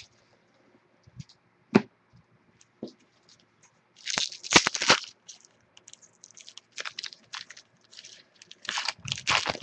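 A foil trading-card pack being torn open and crinkled in several short rustling bursts, with a sharp click about two seconds in.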